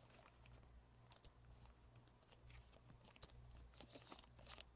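Faint, irregular clicks and scrapes of trading cards being slid and flipped through by hand, with the sharpest click near the end, over a low steady hum.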